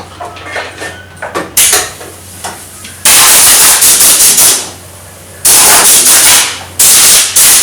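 Compressed air from a homemade air compressor let out in bursts: a short puff, then two loud hisses of about a second and a half each, with a third starting near the end. A few light clicks come before the first puff.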